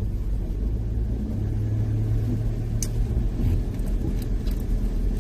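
A car driving on an unpaved country road, heard from inside the cabin: a steady low rumble of engine and tyres, with a sharp click about three seconds in and a few lighter ticks after it.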